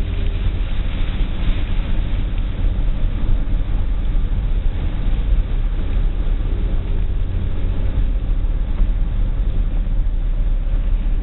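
Car driving: a steady low rumble of engine and road with an even hiss of noise over it.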